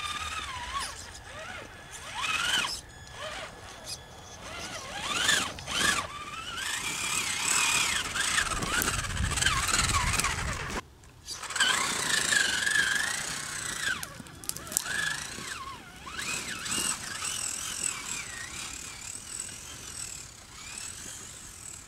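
Traxxas Summit RC truck's brushed 775 electric motor and gearbox whining, the pitch rising and falling over and over as the throttle is worked on and off, with a brief lull about eleven seconds in.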